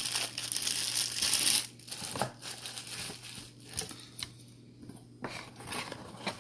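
Plastic packaging crinkling as it is handled and pulled open, loud for the first couple of seconds, then dying down to scattered light rustles and clicks.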